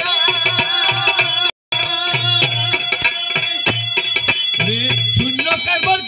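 Baul folk ensemble playing: a harmonium holding steady chords, a hand-played barrel drum beating a rhythm, with a rattling percussion and a bending melody line over it. The sound cuts out completely for an instant about a second and a half in.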